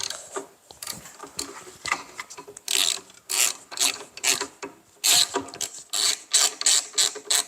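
Hand ratchet tightening a small bolt: a run of short ratcheting strokes, about two a second.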